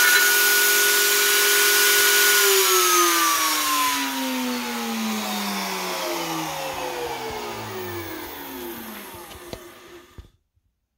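Router motor running at full speed, then switched off about two and a half seconds in and spinning down, its whine falling steadily in pitch and fading over about eight seconds until it stops.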